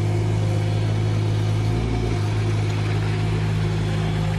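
A vehicle engine running at a steady speed, a low even hum that does not change pitch.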